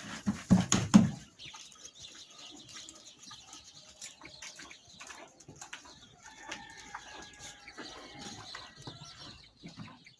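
Farmyard sounds: chickens clucking and small birds chirping, faint and scattered, after a short run of loud low sounds in the first second.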